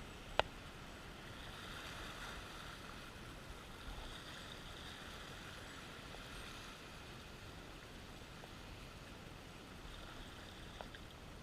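Sea water washing against ocean rocks, a steady soft hiss, with one sharp click about half a second in.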